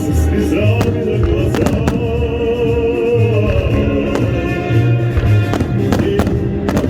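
Fireworks salute going off in a scattering of sharp bangs over steady loud music.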